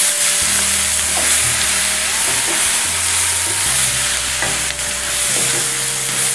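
Bitter gourd, onion and chilli sabzi sizzling in hot oil in a nonstick pan, stirred continuously with a spatula scraping through it.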